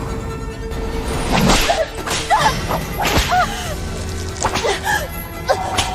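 A whip lashing several times, about a second apart, over background music.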